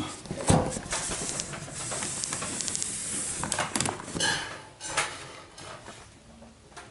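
Plastic rubbing and clicking as a PVC ceiling panel is pushed by hand into its PVC trim channel, with a sharp snap about half a second in, then a few seconds of scraping with small clicks that fades out.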